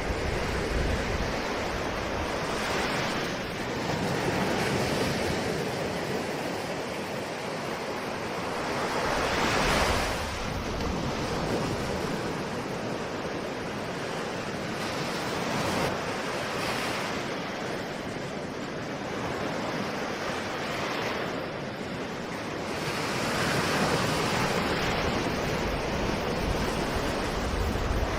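Ocean surf: waves breaking and washing in a continuous rush that swells and ebbs every few seconds, with the biggest surge about ten seconds in.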